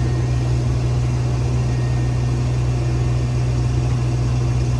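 Combine harvester running steadily while shelling corn: a constant low engine hum with a dense mechanical rumble over it.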